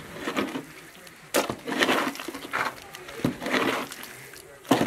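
Sharp knocks, each followed by a wet scrape, three times over: a trowel working wet mortar onto bricks.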